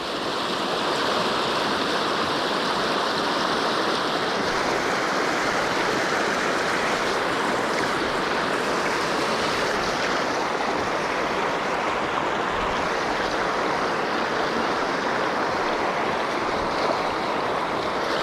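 Creek water rushing steadily over rocks, an even hiss with no breaks.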